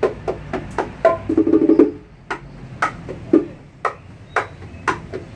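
Güira, the metal scraper of bachata, scraped and struck in a quick rhythm of short, sharp strokes, about three to four a second. A brief low pitched tone sounds about a second and a half in.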